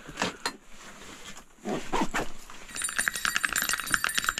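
Fishing gear being packed into a bag, with rustles and knocks. From a little past halfway, a fishing-line spool is wound, giving a fast, even run of metallic clicks with a high ringing tone.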